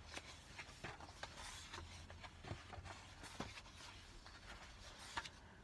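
Faint rustling and scattered small ticks of thick patterned paper sheets being leafed through and turned in a pattern book.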